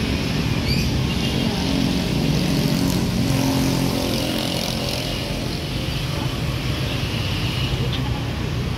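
Steady motor traffic: vehicle engines running with a continuous low rumble.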